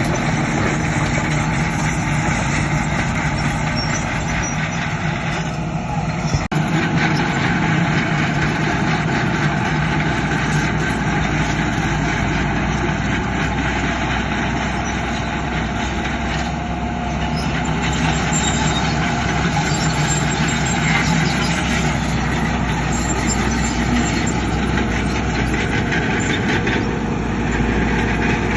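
Heavy diesel earthmoving machinery running steadily, with an unbroken engine drone.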